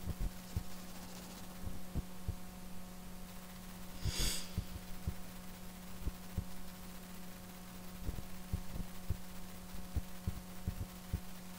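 A steady low hum with irregular soft low thumps, and a single short breathy hiss about four seconds in.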